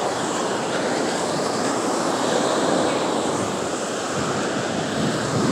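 Ocean surf washing up the beach, a steady rushing noise, with wind blowing across the microphone.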